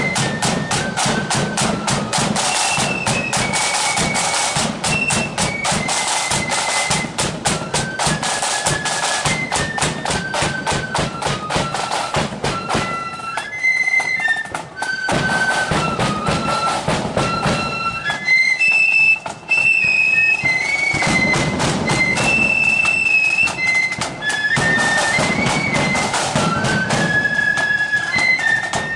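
Marching flute band playing: a tune on flutes over rapid side-drum beating and bass drum. The drumming is heavy for the first dozen seconds, thins out in the middle while the flute melody carries on, and comes back strongly for the last part.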